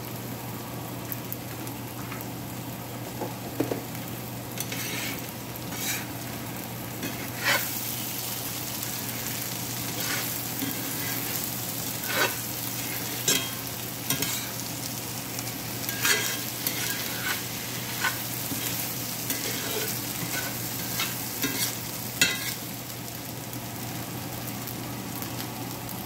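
Rice cake cubes, bean sprouts and egg sizzling steadily in a cast-iron skillet while a metal spatula stirs and tosses them, scraping and clinking against the pan every second or two.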